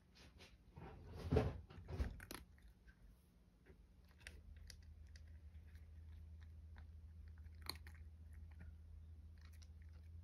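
A cat crunching dry kibble, the crunching loudest in the first couple of seconds and then as scattered crisp clicks. A low steady hum comes in about four seconds in.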